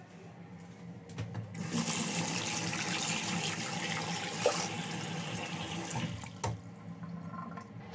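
Bathroom sink tap running, water splashing over a hand held under the stream. It starts about a second and a half in and eases off after about six seconds.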